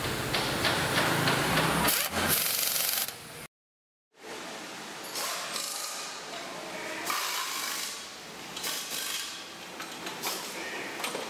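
Rubbing and scraping handling noise of metal parts as a carburettor and intake pipe are fitted by hand to a small motorcycle engine. About three and a half seconds in, the sound cuts out dead for half a second. After that comes lighter clatter and handling noise of an exhaust silencer being fitted on an assembly line.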